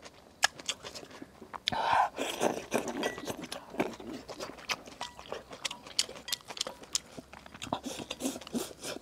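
Close-miked eating of stir-fried rice noodles: slurping and chewing, with many small clicks of chopsticks against the bowl.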